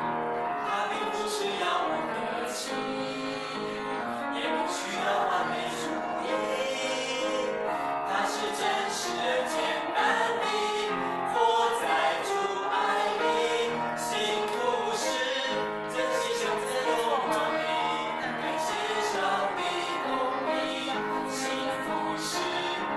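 Music: a song with singing voices over instruments and a steady beat.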